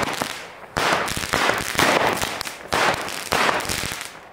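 Small 'Fire and Ice' 7-shot consumer firework cake firing: four sharp shots roughly a second apart, each trailing off in a brief hiss. The last shot fades away near the end.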